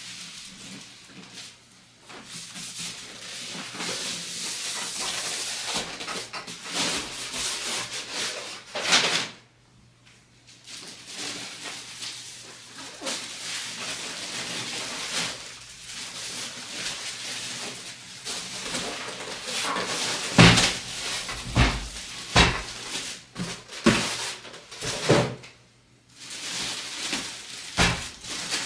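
Hands unpacking a PC case: packaging rustling, with several sharp knocks and thumps clustered near the end.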